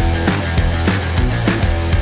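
Background rock music with a steady, fast drum beat and a heavy bass line.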